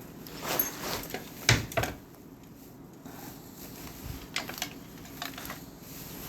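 Irregular clicks and knocks of bicycle fork and headset parts being handled, with a cluster of sharper knocks in the first two seconds, the loudest about a second and a half in, then a few lighter ticks.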